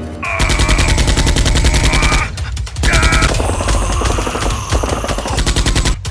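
Rapid automatic-gunfire sound effects in two bursts: one about two seconds long starting just after the beginning, then a short break, then a longer burst of about three seconds.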